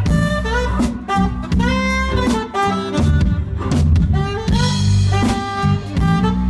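Saxophone solo played live over a band, with a melody line moving from note to note. A drum kit keeps a steady beat and a bass guitar plays low underneath.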